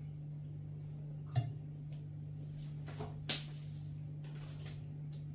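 Three short clinks of a metal spoon against a pot and plates as food is dished out, over a steady low hum.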